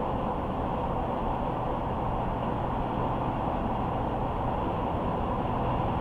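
Car driving at a steady speed: constant low rumble of tyre and road noise with a faint steady hum underneath.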